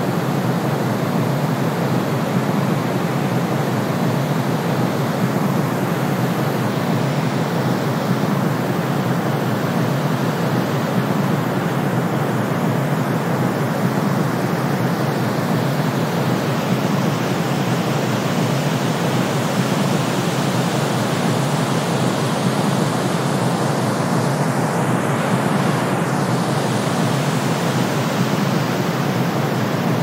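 Steady blend of brown noise and white noise: an even, unchanging rush, heaviest in the low range with a hiss over it.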